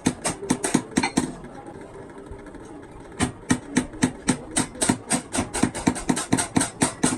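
Hammer blows in quick series during truck clutch plate repair: about six strikes at the start, a pause of about two seconds, then an even run of about three to four blows a second.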